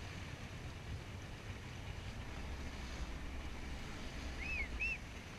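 Small fishing boat under way: a steady low rumble with wind and water rushing past. Two short, high chirps sound near the end.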